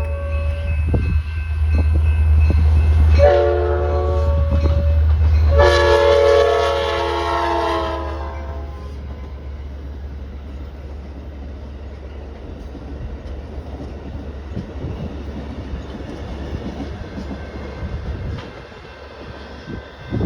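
Diesel locomotive's multi-chime air horn sounding as the train passes: the end of one blast, a short blast about three seconds in and a longer one about six seconds in, over the engine's deep rumble. After about eight seconds the rumble fades into steady rail noise from the passing train.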